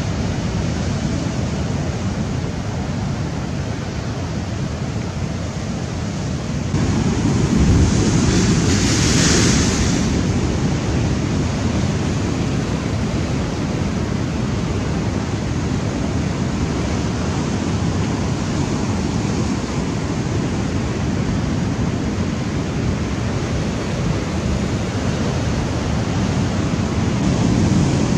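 Rough sea surf breaking and washing over a rocky shore, a steady rushing noise. A bigger wave breaks louder about seven seconds in and dies back by ten seconds.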